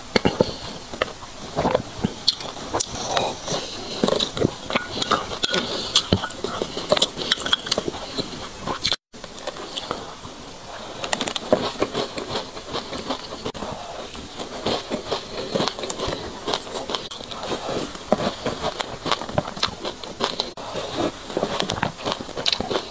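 A person chewing a mouthful of dry sesame seeds: a dense, fast crackling crunch. There is a brief dropout to silence about nine seconds in.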